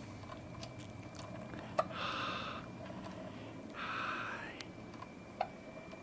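A baby hiccuping, two short sharp hics about three and a half seconds apart, with soft breathy sounds between them.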